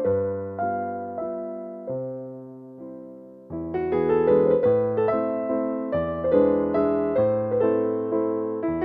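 Background piano music: a slow, gentle tune of single struck notes that die away. It thins out and softens for a moment, then comes back fuller about three and a half seconds in.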